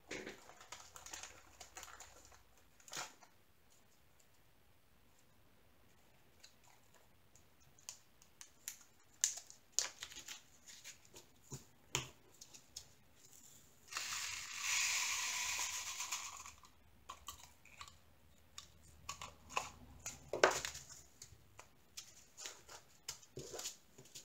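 Small plastic zip bags crinkling and small plastic drill containers clicking as they are handled, with a steady rattling hiss of about three seconds in the middle as tiny resin diamond-painting drills are poured into a bag.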